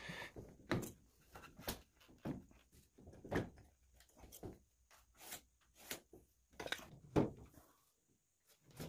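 Scattered light knocks and clicks, irregularly spaced, as a metal transom-mount launch-wheel bracket is held and shifted against the aluminum transom of a jon boat; the loudest knock comes about seven seconds in.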